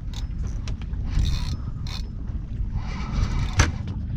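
Fishing reel being cranked while fighting a hooked fish, with scattered clicks and a sharp knock about three and a half seconds in, over a steady low rumble.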